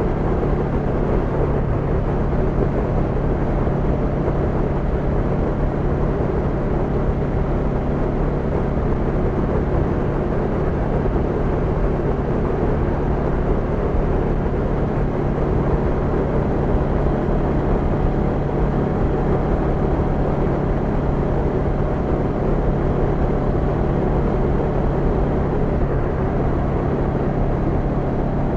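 Honda NX500's parallel-twin engine running at a steady cruise, its note holding level, over wind and road noise.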